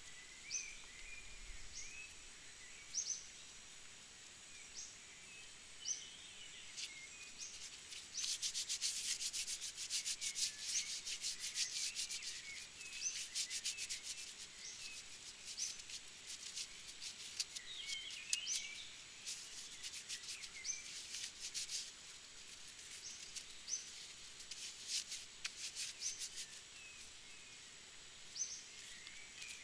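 Plastic MRE packets crinkling and rustling in the hands as they are handled and opened, loudest in two stretches, about a third of the way in and again past the middle. A bird chirps behind it throughout, short high notes repeated every second or so.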